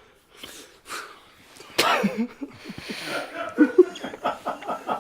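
A man snorting as he snores, with one or two short snorting breaths, then from about two seconds in people suddenly break into laughter.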